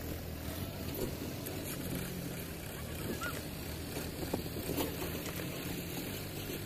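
Mahindra diesel tractor engine running steadily at low speed.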